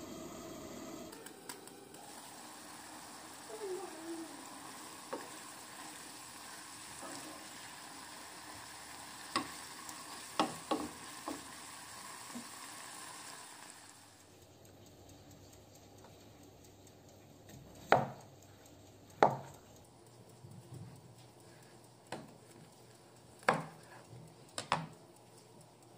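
Minced beef sizzling in a frying pan while a wooden spatula stirs it, with a few light taps of the spatula on the pan. After about 14 s the sizzling stops, and a knife chops through zucchini onto a plastic cutting board: about five sharp knocks, the loudest two a little over a second apart.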